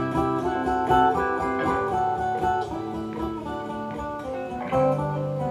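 Acoustic guitar playing an instrumental passage of a song, single plucked notes over chords.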